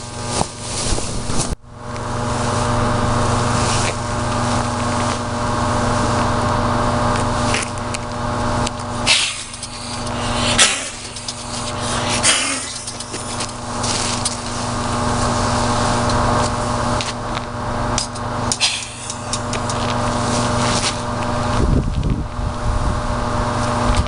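Steady electrical hum from substation transformers, under a rushing noise that swells and fades. Low rumbling takes over near the end.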